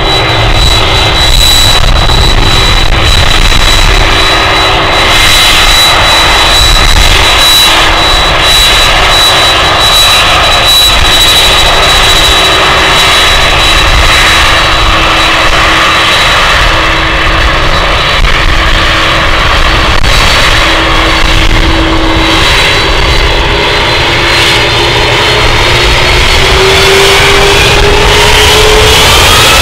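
Boeing 767-300 jet engines running at taxi power close by, a steady whine over a low rumble. Near the end the whine starts to rise in pitch as the engines begin to spool up for takeoff.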